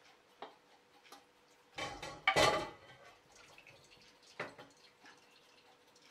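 Boiled meat and its cooking liquid poured from an enamelled pot into a metal mesh colander over a glass bowl. There is a wet splash and slosh of pieces landing about two seconds in, with a few light knocks of the pot against the colander before and after.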